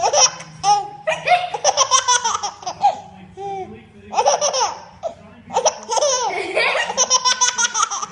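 High-pitched giggling laughter in three bursts of quick repeated pulses, with short lulls about three and five seconds in.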